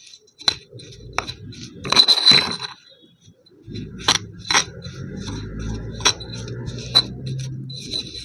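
A series of sharp clinks and taps of hard objects, each with a short ring, about a dozen in all. From about four seconds in a low steady hum runs under them.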